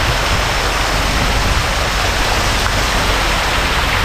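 Many fountain jets splashing down into shallow pools: a steady, even sound of falling water.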